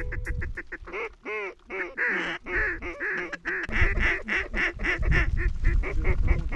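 Mallard duck call blown to work an approaching flock: a few drawn-out hen quacks, then from about four seconds in a fast, even run of about five quacks a second.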